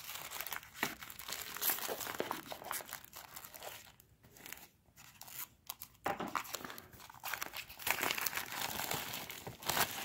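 Plastic shrink wrap being slit with a pocketknife and pulled off a cardboard box. The handling noise eases off for a couple of seconds around the middle, then picks up again.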